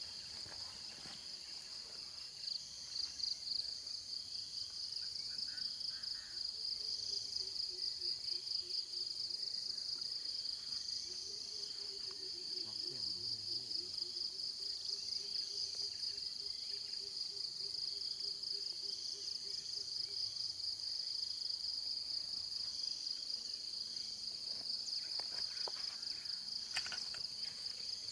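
A dense insect chorus gives a steady, high-pitched trill with a fast, even pulse. A faint wavering low hum passes through the middle.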